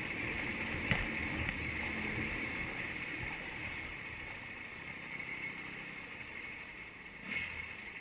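Steady road and wind noise of a ride along a street, with a low rumble, a couple of light clicks about a second in, and a slight dip and rise near the end.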